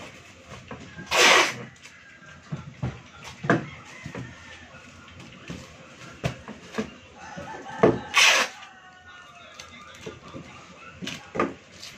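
Clear plastic wrapped tightly around a bundle of folded laundry rustling and crinkling as it is pressed and handled. There are two loud, brief crackles, about a second in and about eight seconds in, with smaller clicks between.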